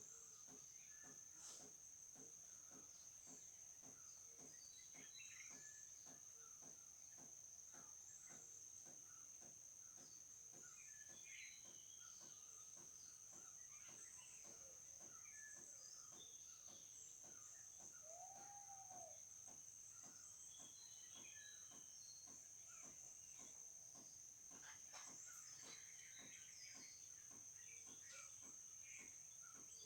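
Faint nature ambience: insects such as crickets keep up one steady high, unbroken tone, with many short bird chirps scattered over it. A single lower call rises and falls a little past halfway.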